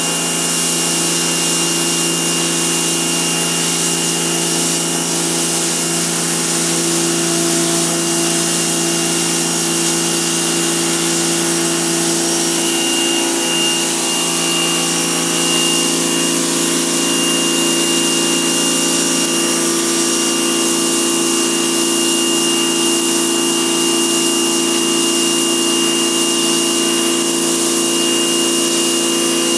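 Small 1800 psi electric pressure washer running steadily: an electric motor and pump hum with a high hiss from the water jet as it strips paint off deck wood. A thin high whine grows stronger about halfway through.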